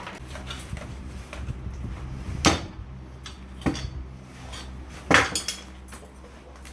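Hand tools and metal engine parts clinking and knocking, with a few sharp metallic strikes and a short cluster of knocks near the end, over a steady low hum.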